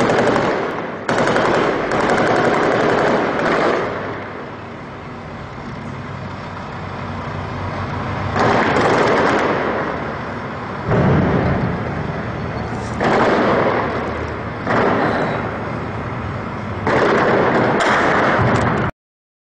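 Heavy automatic gunfire in long bursts, about seven of them, each lasting one to three seconds, with a lower rumble between them and a lull of about four seconds after the first two bursts. It cuts off suddenly near the end.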